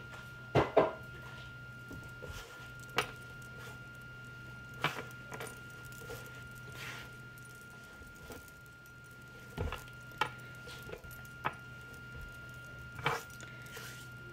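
Hands kneading and pressing a crumbly flour dough on a wooden board: scattered soft thumps and taps, the loudest a pair of knocks near the start, over a faint steady hum.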